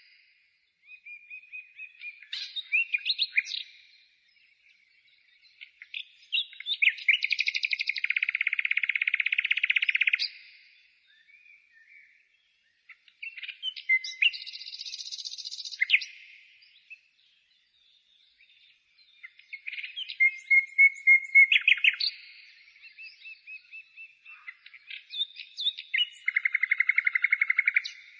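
A songbird singing: varied phrases of whistles and chirps in bouts of about three to four seconds with short pauses between, several of them ending in a fast, rattling trill.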